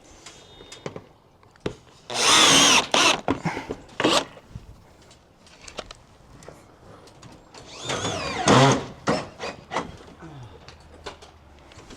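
Power drill running in two short bursts, about two seconds in and again near eight seconds, as it drives screws to fasten a gutter guard, with scattered knocks and clicks between the bursts.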